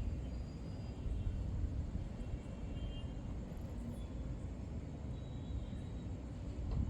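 Wind buffeting the phone's microphone: an uneven low rumble that swells and drops.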